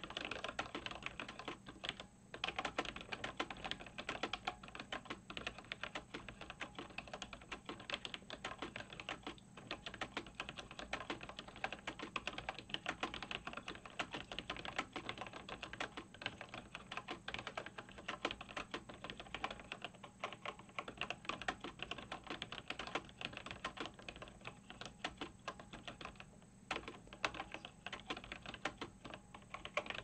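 Fast, steady typing at about 65 words a minute on a 1988 Cherry G80-1000HAD mechanical keyboard with linear Cherry MX Black switches and thick ABS doubleshot keycaps: a dense run of keystrokes and key bottoming-out clacks. The typing breaks off briefly a few times, about 2, 9.5 and 26.5 seconds in.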